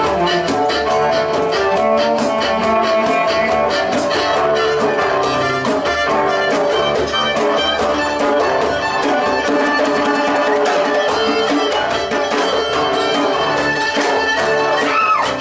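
A live folk band playing an instrumental passage: fiddle leading over strummed acoustic guitar, with a djembe hand drum keeping a steady beat.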